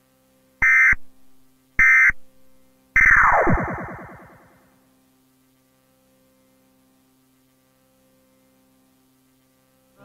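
Emergency Alert System end-of-message data bursts: two short, harsh electronic screeches about a second apart, then a third that slides steeply down in pitch like a tape winding down and fades out. A faint steady hum follows.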